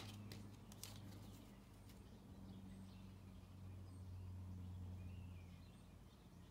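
Near silence: a low, steady room hum, with a few faint clicks of tarot cards being laid down in the first second.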